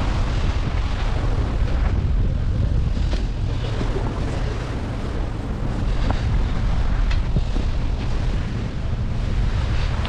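Wind buffeting the microphone aloft on a tall ship's yard: a steady, heavy low rumble, with a few faint clicks.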